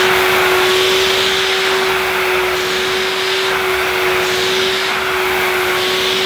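Miele S126 bagged stick vacuum cleaner running steadily at full suction, a steady high motor whine over rushing air, as its handheld nozzle is drawn across carpet.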